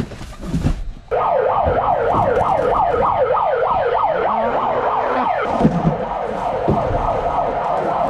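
Siren starts suddenly about a second in and wails in fast, repeated falling sweeps: the delivery station's signal for the vans to roll out.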